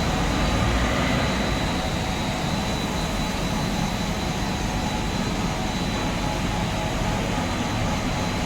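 Steady, even drone of factory machinery on a copper-rod continuous casting line, with a thin high whine running through it.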